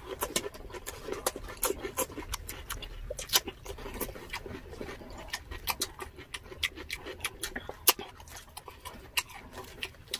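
Close-up eating sounds: crunching and chewing of crispy deep-fried pork leg skin and cucumber, heard as many sharp, irregular crackles and clicks.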